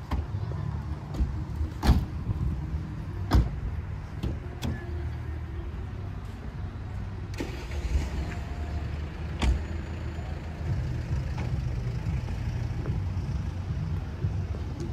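Car engine idling, a steady low hum, with several sharp knocks over it in the first ten seconds.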